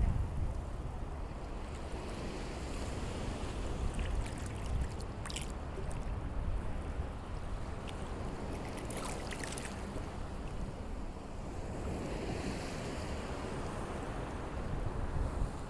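Sea waves washing, with wind rumbling on the microphone and a few brief hissing surges.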